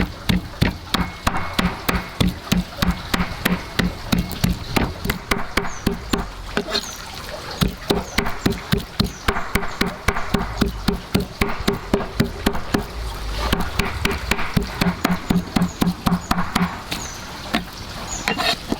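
Rapid, rhythmic knocking strokes, about four a second, each with a short low ring, pausing briefly a couple of times.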